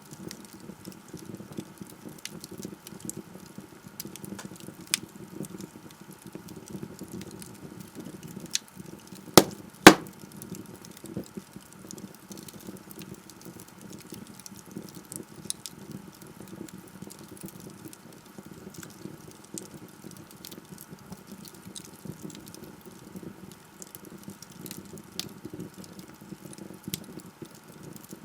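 Wood fire burning in a fireplace: a steady low rush of flames with scattered small crackles, and two loud sharp pops close together about ten seconds in.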